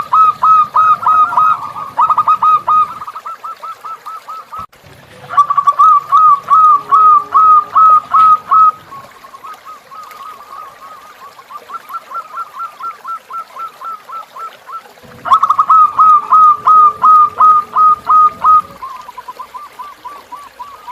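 Zebra dove (perkutut) calling: rapid runs of short hooked notes, about five or six a second, in three loud bouts of a few seconds each, with a fainter run of the same notes between the bouts.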